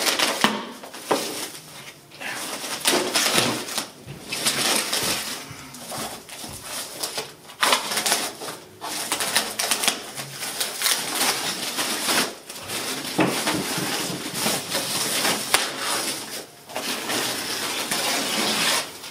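Thin plastic wrapping bag around a monitor being cut open and pulled back by hand: crinkling and rustling that goes on almost throughout, with a few brief pauses.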